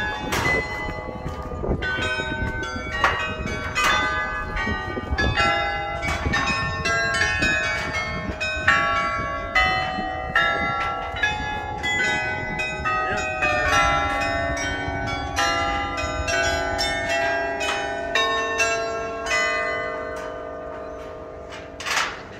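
Church bells ringing a tune: a quick run of single bell strikes at many different pitches, a few a second. Near the end the strikes stop and the last notes hang on and fade, with one more strike just before the end.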